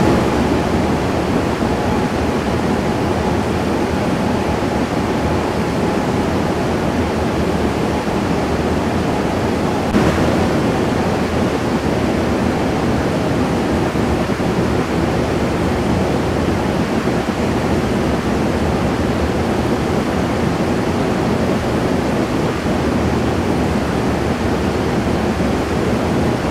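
Steady, even rushing noise with no tone in it, and one short click about ten seconds in.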